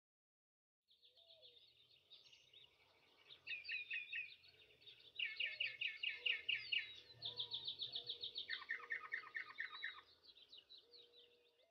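Birds singing: several different songs of chirps and fast runs of repeated notes, starting about a second in and dying away near the end.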